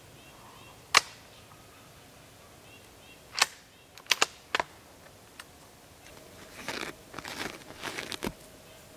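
Footsteps on a dry forest floor of pine needles and twigs: a few separate sharp snaps and crunches, then steadier rustling over the last couple of seconds.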